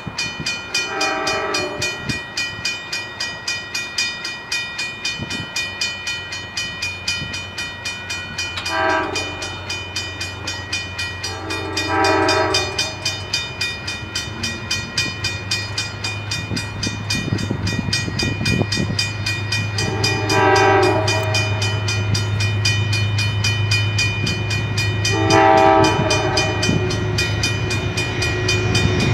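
Grade-crossing warning bells ringing rapidly and steadily as an approaching diesel locomotive sounds its horn in five separate chord blasts. The locomotive's low engine rumble grows from about a quarter of the way in as the train nears.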